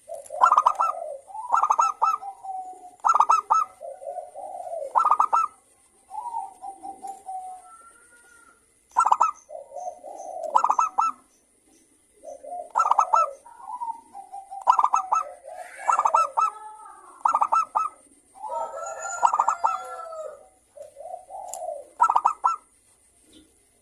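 Local zebra dove (perkutut) singing its cooing song over and over: phrases of quick staccato notes and rolling coos, with short pauses between them. This is the kind of song played as a lure to set other zebra doves singing.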